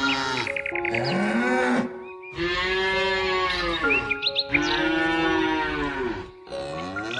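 Cattle mooing: three long, drawn-out moos, one after another, with short chirps over them.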